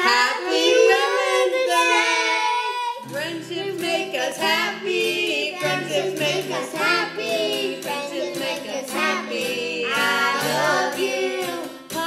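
A woman and two girls singing together in unison, with an acoustic guitar strumming underneath from about three seconds in.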